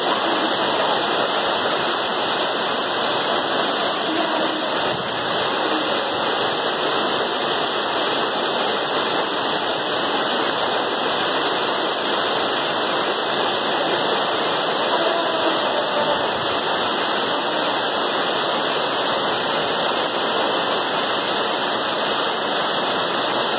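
Waterfall and cascading mountain water rushing steadily over rocks: a dense, even noise with no breaks.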